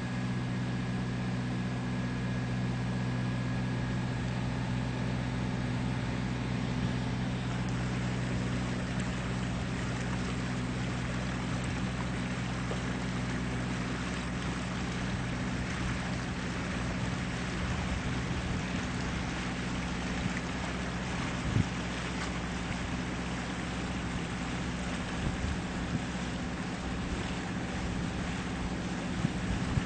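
Boat engine running at a steady low drone, with water and wind noise over it. A few light knocks come in the second half.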